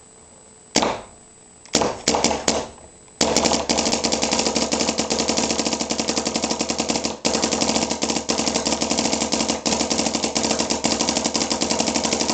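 Proto Matrix PM6 paintball marker firing reballs on semi-automatic: a few single shots, then, about three seconds in, a fast unbroken string of shots that keeps going, with one short pause about seven seconds in.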